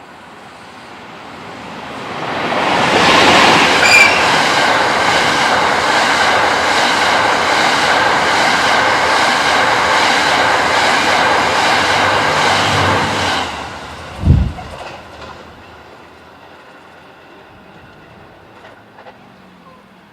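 An EF81 electric locomotive and its E26 passenger cars passing at speed: the train noise builds over about two seconds, then runs loud with a regular clatter of the wheels for about ten seconds, with a brief high tone about four seconds in. The noise cuts off sharply as the last car goes by, followed by a single low thump.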